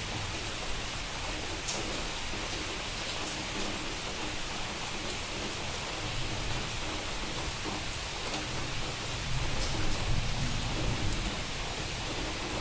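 Heavy rain pouring steadily, with a low rumble swelling about nine to eleven seconds in.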